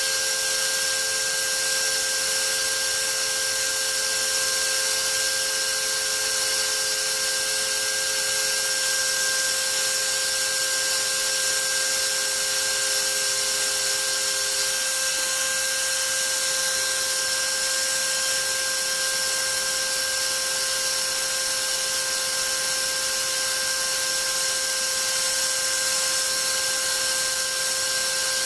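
Brushless outrunner motor spinning an 8x6 three-blade propeller at steady throttle on a thrust stand: a steady whine of several held tones over the rush of air from the prop, one tone sinking slightly partway through as the thrust eases off a little.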